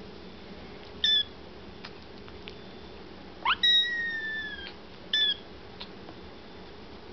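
Kittens meowing, begging to be fed their milk: three high-pitched meows, a short one about a second in, a long drawn-out one in the middle, and another short one about five seconds in.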